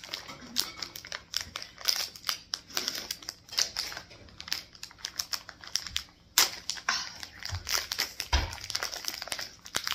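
Crinkly snack packaging crinkling and crackling in irregular bursts as it is handled and torn open, with one sharper crackle about six and a half seconds in.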